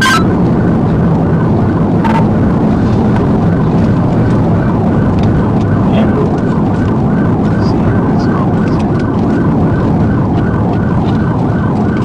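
Police cruiser's siren on a fast repeating yelp, heard over loud steady engine and road noise from the car driving at speed.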